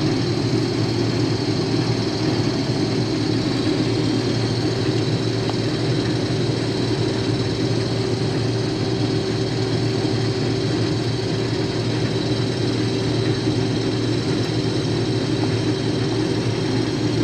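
Case IH 2188 combine's diesel engine and threshing machinery running steadily under load while cutting wheat: an unchanging, even drone.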